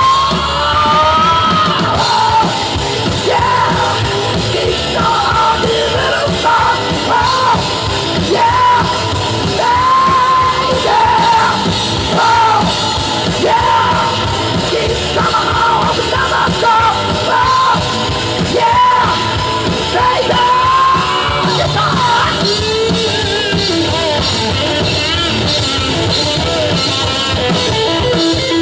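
Live rock band playing loudly: drum kit and guitars under a high, bending lead melody line, which drops away about three-quarters of the way through, leaving the band playing on.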